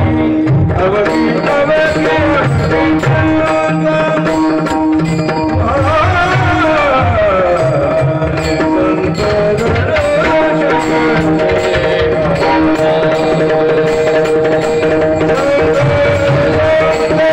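Marathi kirtan singing: men's voices holding long notes that slide up and down, over steady sustained tones and repeated hand-drum strokes.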